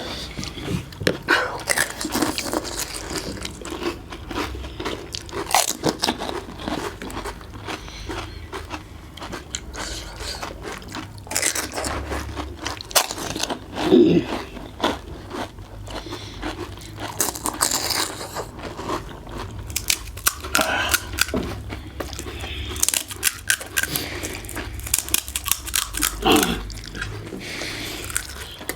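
Panipuri being eaten: the crisp fried puri shells crunch as they are bitten and chewed, in irregular crackles throughout.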